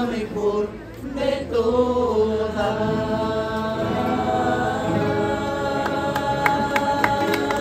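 Group of voices singing in chorus to strummed acoustic guitars, holding long notes. Near the end, scattered handclaps start.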